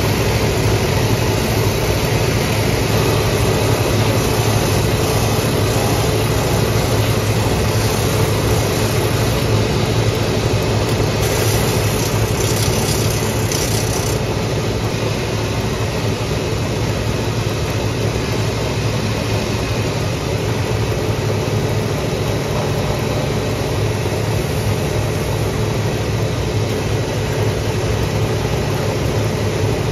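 Shoe finishing machine running steadily, its motor and spinning sanding wheels making a constant drone, while a leather heel and then a boot's sole edge are ground against the wheels.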